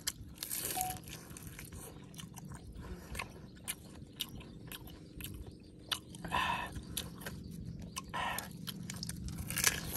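Biting and chewing of grilled pig tail, close to the microphone: many small mouth clicks, with louder stretches of chewing a little after the start and about six and eight seconds in, and a sharp click near the end.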